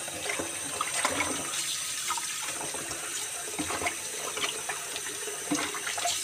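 Tap water running into a plastic basin of water in a sink while a hand swishes and rubs pieces of raw pork tail under it, with small splashes, washing the meat.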